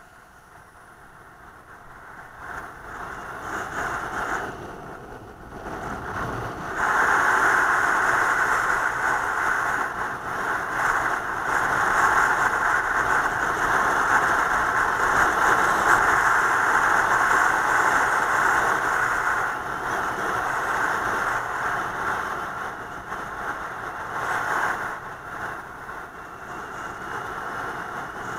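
Vehicle pulling away from a stop and driving at speed, heard from the vehicle itself: road and wind noise with the engine. It rises over the first few seconds, then runs loud and steady with small dips.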